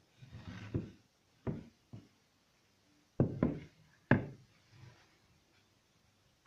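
A wooden cutting board knocking and scraping against a wooden countertop as it is handled and stood upright: a shuffling scrape in the first second, then several sharp knocks up to about four seconds in.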